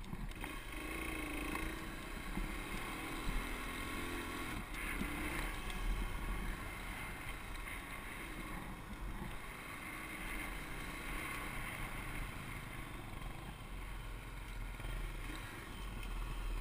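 Motorcycle engine running steadily while riding a rough dirt road, under heavy wind rush and low rumble on the bike-mounted camera.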